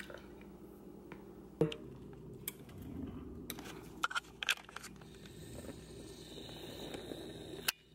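Handling noise from a handheld camera being moved about: low rustling with several short, sharp clicks and knocks, the loudest about one and a half seconds in and another just before the end.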